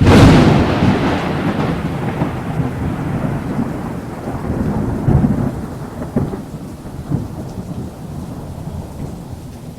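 Thunderstorm: a loud thunderclap right at the start, then rolling thunder that fades over several seconds, with a few more low rumbles about five to seven seconds in, over a steady hiss of rain.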